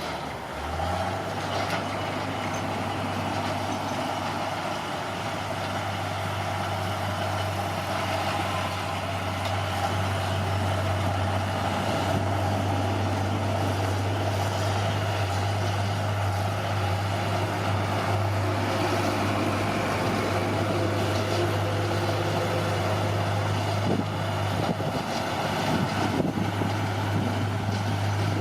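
Bulldozer's diesel engine running steadily under work.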